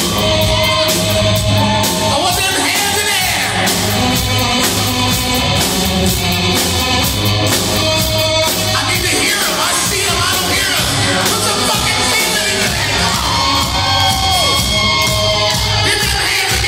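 Live rock band playing loudly: a lead electric guitar with bent, wavering notes over drums and bass.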